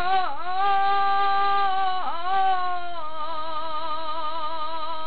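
A man singing a Baul folk song with no accompaniment, drawing out one long note at the end of a line. The note dips briefly in pitch twice, then wavers in a steady vibrato for its last couple of seconds.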